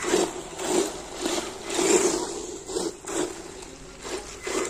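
Battery-powered RC buggy driving on dirt, its electric motor whirring in short throttle bursts about every half second, with the tyres scraping over the grit.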